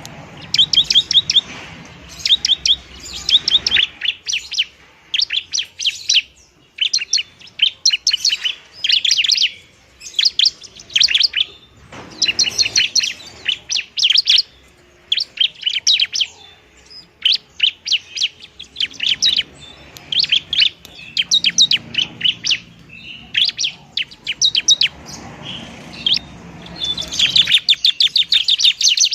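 Ciblek (bar-winged prinia) singing its rapid 'tarung' fighting song: quick runs of sharp, high chirping notes in bursts of a second or two, with short pauses between them.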